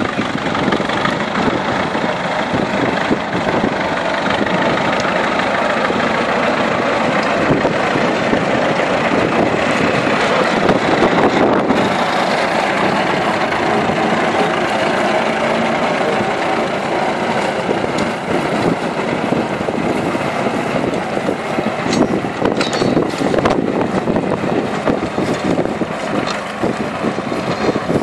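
Vintage tractor engine running steadily as it pulls a plough through the furrow, getting louder as the tractor passes close by about halfway through, then easing off as it moves away.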